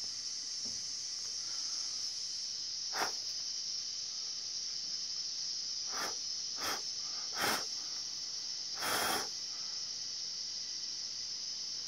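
Steady high-pitched insect chorus, with five short puffs of noise over it, the last and longest about three-quarters of the way through.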